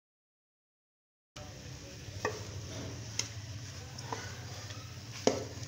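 Dead silence for over a second, then a low steady hum of room noise with four light taps about a second apart, typical of food being handled on a kitchen worktop.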